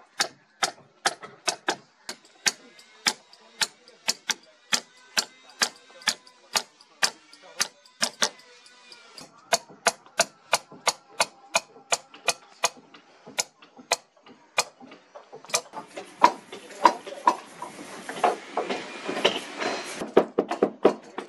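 Hammer tapping a caulking iron, driving fibre caulking into the plank seams of a wooden boat hull: sharp, steady strikes about two a second. About fifteen seconds in, a background of voices and boatyard noise rises beneath the continuing strikes.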